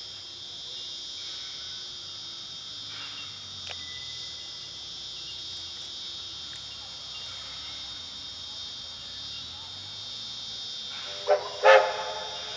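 Insects droning steadily in a high, even chorus while a steam locomotive approaches. Near the end the locomotive's whistle gives two short blasts, the second louder and longer.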